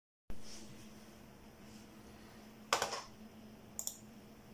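Quiet room tone with a faint steady hum, broken by a short knock about three seconds in and two quick small clicks just under a second later.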